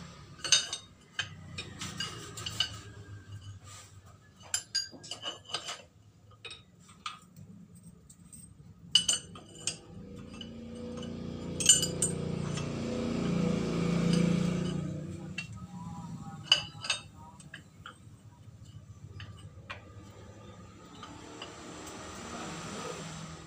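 Steel parts and pipe spacers clinking and knocking as they are set in place on the bed of a hydraulic bottle-jack press, in scattered sharp clinks. A low rumble swells and fades away in the middle.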